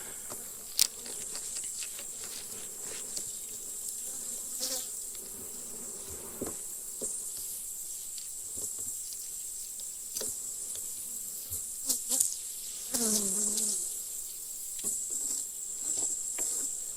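Honey bees buzzing around an opened hive, one passing close to the microphone about thirteen seconds in with a buzz that drops in pitch, over a steady high insect whine; scattered light clicks.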